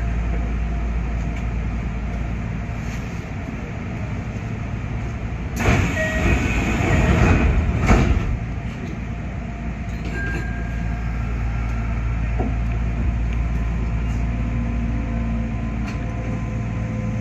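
Electric commuter train (Kintetsu 5800 series) heard from the cab, with a steady low rumble of its onboard equipment while it stands at a station. A loud burst of noise lasts about three seconds partway through, and near the end the train pulls away with a faint motor whine rising in pitch.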